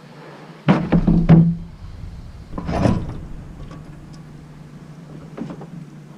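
Heavy scrap metal being thrown down: a quick cluster of loud clanging impacts about a second in and another near three seconds, then a few lighter knocks, over a steady low hum.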